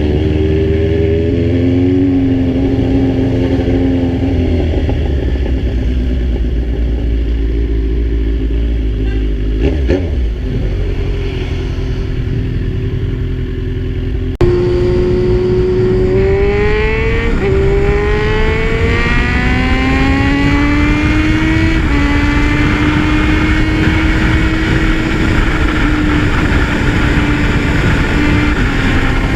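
Kawasaki Z1000's inline-four engine running under way, with heavy wind rumble on the microphone. After an abrupt break about halfway, the engine pulls hard, its pitch climbing through two upshifts, then settles to a steady cruise.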